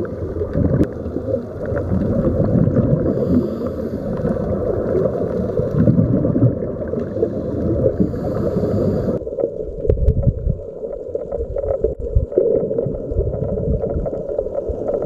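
Underwater noise picked up by a diving camera: a loud, steady low rumbling and gurgling. Two short hissing bursts come a few seconds apart, and the upper part of the noise drops away about nine seconds in.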